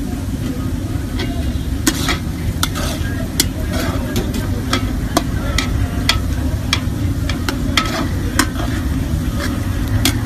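Sliced onions frying in oil in a large aluminium pot, sizzling, while a metal ladle stirs them, clicking and scraping against the pot many times. A steady low rumble runs underneath.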